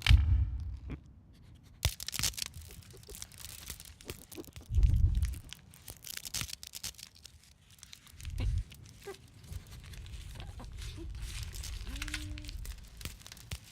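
Foley sound effects: crackling, crumpling and tearing noises, broken by three heavy low thuds, at the start, about five seconds in and about eight and a half seconds in, with a brief short pitched sound near the end.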